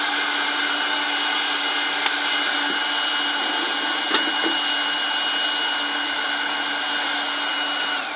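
Small electric blower feeding air to a homemade charcoal forge, running with a steady rushing whine, then switched off right at the end and whining down in pitch as it spins to a stop.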